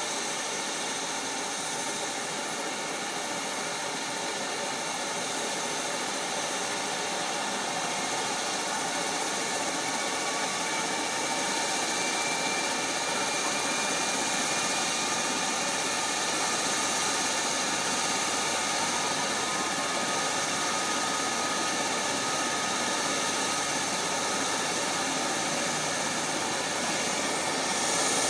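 Mowing machine's engine running steadily under load while it cuts a grassy slope. It makes a continuous drone with a high whine, growing slightly louder over the stretch.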